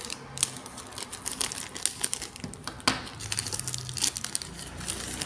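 Plastic shipping packaging crinkling and rustling as it is pulled open by hand, with a few sharper crackles and snaps.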